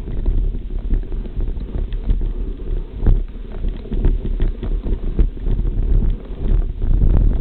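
Mountain bike rattling and knocking over a rough, overgrown trail, with many short jolts. Wind rumbles on the microphone throughout.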